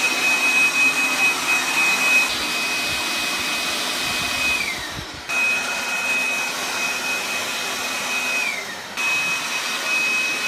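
Jakmister 500 W electric air blower running at full speed: rushing air with a steady high motor whine. Twice the whine sinks as the motor slows, then it is abruptly back at full speed.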